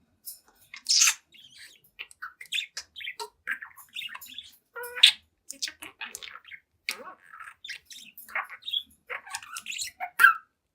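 Young budgerigar chattering: a rapid, busy run of short chirps, clicks and warbles, with a few louder squawks spread through it.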